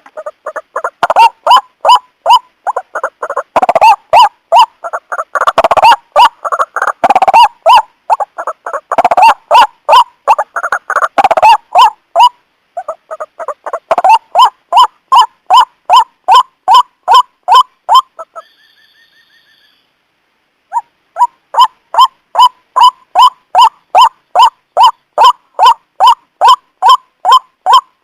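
White-breasted waterhen (ruak-ruak) calling: a long series of harsh repeated notes, about two or three a second. The notes are crowded and overlapping for the first dozen seconds, then settle into an even rhythm. The series breaks off for about two seconds, with a faint higher call in the gap, then resumes.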